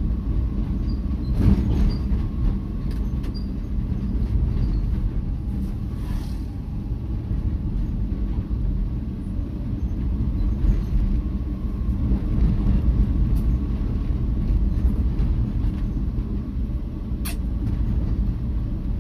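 Vehicle driving along a paved road: a steady low rumble of engine and tyre noise, with a few light clicks or knocks, one about a second and a half in and another near the end.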